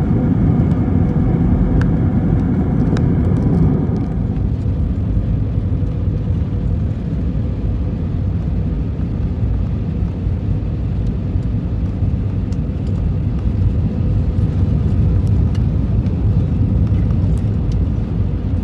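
Airbus A321-231 cabin noise: its IAE V2500 jet engines and rushing air as a steady low rumble. A higher engine whine drops away about four seconds in, leaving the rumble.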